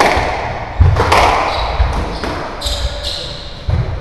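Squash rally: the ball cracks off rackets and the court walls several times, and shoes squeak on the wooden court floor.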